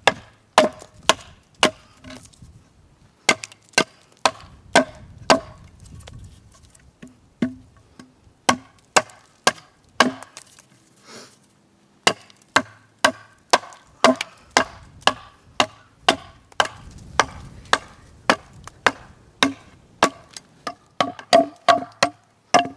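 Carpenter's axe chopping a point onto the end of a locust fence post braced on a chopping block: a run of sharp wooden chops, about two a second, with a couple of brief pauses.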